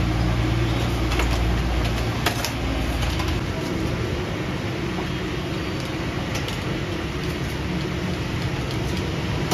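Steady whoosh and low hum of an electric blower fan blowing air across a charcoal kebab grill, mixed with street traffic noise; the low hum eases after about three seconds. A few sharp clicks, like metal skewers being handled, come through.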